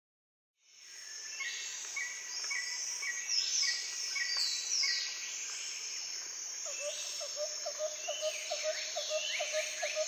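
Forest ambience fading in: many birds calling at once, with repeated short chirps and falling whistles, over a steady high insect hiss. About two-thirds of the way in, a lower call joins, pulsing about four times a second.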